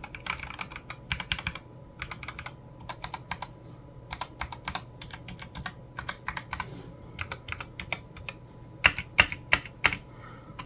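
Typing on a Boyi TD66 mechanical keyboard with Gateron Yellow linear switches, keys clacking at an uneven pace with a few louder strokes near the end. The spacebar has a little bit of rattle.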